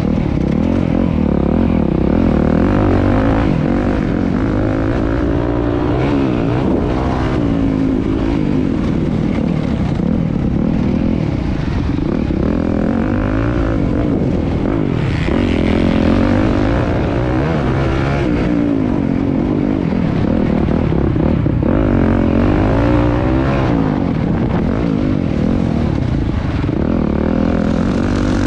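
Motocross bikes racing, several engines revving up and down over one another, loud and without a break.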